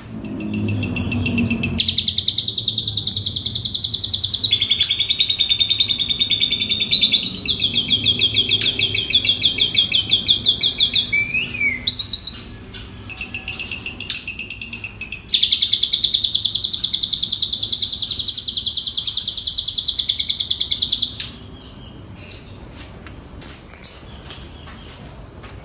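Asian pied starling (jalak suren) singing long phrases of fast, rapidly repeated trilled notes, the kind of borrowed song (isian) it is kept and trained for. The song breaks off briefly near the middle, then resumes and stops well before the end, leaving only faint scattered notes.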